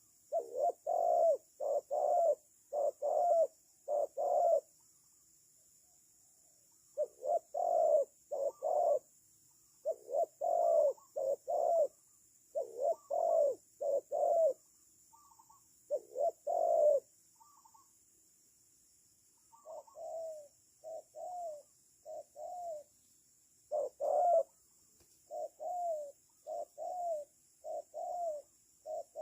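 Spotted doves cooing in repeated phrases of three or four low coos with short pauses between them. The phrases are loud for the first half; quieter phrases follow in the second half.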